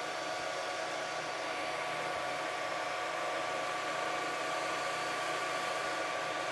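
Creality Ender 3 V2 3D printer printing at a set speed of 300 mm/s: a steady hiss of its cooling fans with a steady whine over it.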